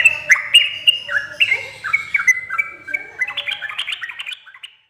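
Yellow-vented bulbul (trucuk) singing a run of short, bubbly whistled notes that come faster and denser after about three seconds, then stop shortly before the end.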